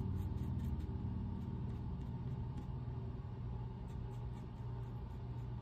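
Steady low background rumble with a faint constant hum tone above it.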